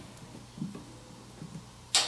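Handling of a hose and hose clamp being fitted onto a fitting: a few soft knocks, then a single sharp click near the end.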